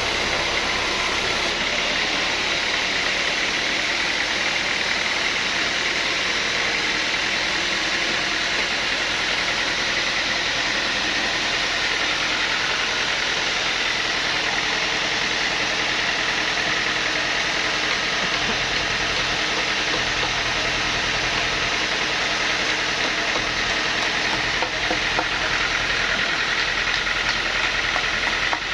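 Sawmill saw running steadily, a continuous loud mechanical drone and hiss as it cuts mahogany.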